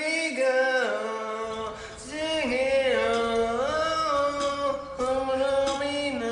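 Singing: long held notes that slide up and down in pitch, with no clear words. A low rumble joins underneath about a second and a half in.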